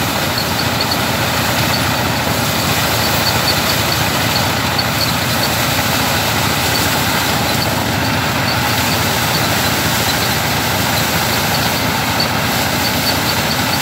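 Powered paddy thresher running steadily under load: a loud, even mechanical din as its spinning drum threshes rice stalks fed in by hand.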